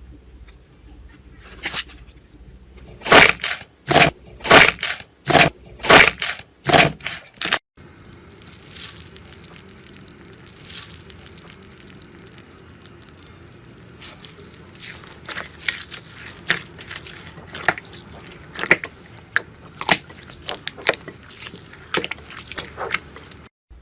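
Slime being played with by hand: a run of about eight loud sharp pops, one roughly every half second, then softer handling with many small crackling clicks of slime being squeezed and pressed.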